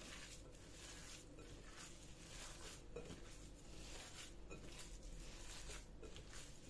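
Raw minced-meat köfte mixture kneaded by hand in a glass bowl: faint, soft squishing strokes repeating about twice a second.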